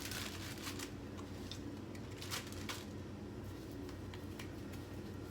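Almonds being handled by hand and dropped in, heard as a few scattered light clicks and rustles, most of them in the first three seconds. A steady low hum runs underneath.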